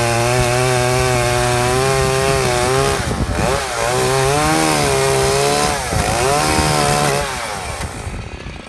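Chainsaw engine running at high revs, its pitch sagging briefly twice and recovering, then the throttle is let off near the end and the engine winds down. The chain is running on a link riveted with a cut-off nail head.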